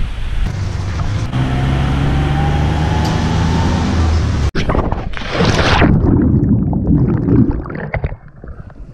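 Tuk-tuk engine running steadily, with a slowly rising whine over it. After a sudden cut about halfway through, a loud rush of splashing water, then water sloshing in a swimming pool as a swimmer surfaces.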